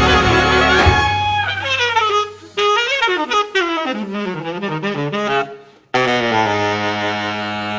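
Jazz big band of saxophones, clarinets, trumpets, trombones, piano, bass and drums playing live: the full band until about a second in, then the reeds carry falling, bending phrases. After a brief gap near six seconds, the whole band holds a sustained chord.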